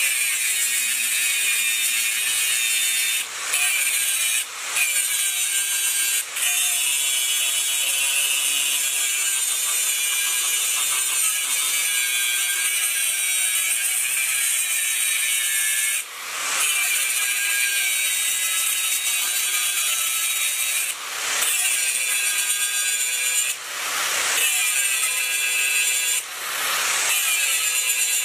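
Angle grinder disc cutting into a steel spanner: a steady, loud, high grinding noise over the motor's whine, briefly dropping away about seven times as the disc comes off the metal and bites again.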